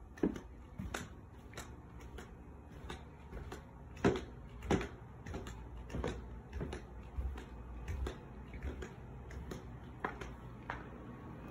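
Footsteps going down a staircase and on across the floor, a step about every half second or so, the heaviest about four seconds in.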